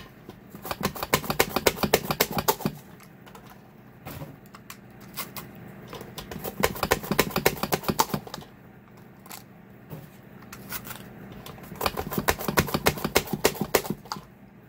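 Cucumber pushed rapidly back and forth across a plastic mandoline slicer's blade, a quick run of clacking slicing strokes. It comes in three bursts of about two seconds, with short pauses between.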